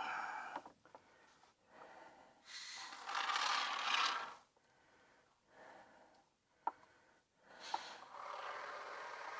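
Can of Great Stuff expanding spray foam hissing in three spurts as foam is sprayed to seal a gap, with a couple of sharp clicks between spurts.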